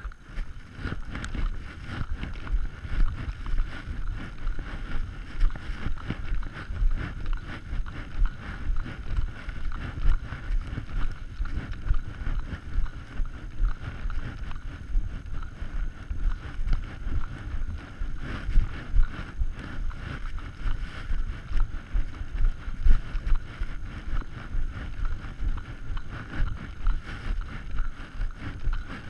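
Footsteps walking through snow in a steady rhythm, with the rustle of clothing and gear against a body-worn camera.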